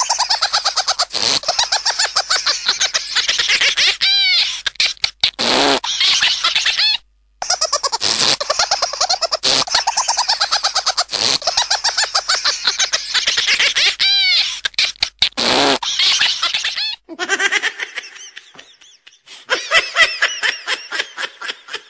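High-pitched, fast, pulsing laughter, with a brief break about seven seconds in. About seventeen seconds in it gives way to a quieter, lower laugh.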